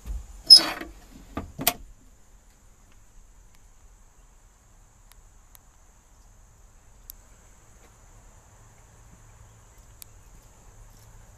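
The glove box door of a 1972 Chevrolet pickup being shut: a short rattling clunk followed by a sharp latch click, all within the first two seconds. After that it is quiet, with a faint low hum and a couple of tiny ticks.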